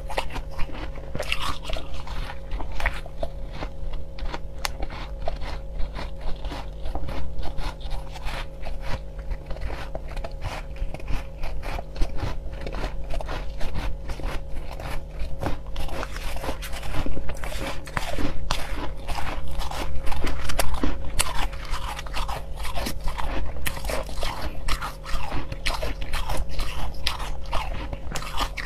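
Soft crushed ice being bitten and chewed close to the microphone: dense, irregular crunching that keeps up throughout.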